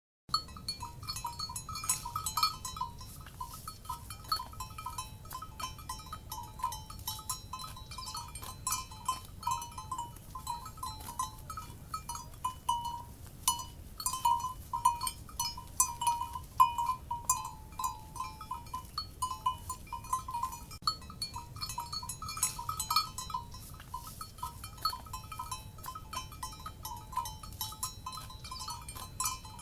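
Cowbells clanking and jangling irregularly, many strikes a second, over a low steady rumble. The sound cuts in abruptly just after the start.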